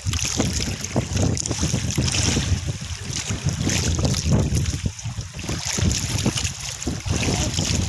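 Wind buffeting the microphone in gusts, over the wash of waves around a small outrigger boat.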